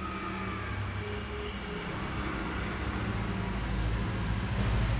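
Road traffic: a motor vehicle running with a low rumble that slowly grows louder.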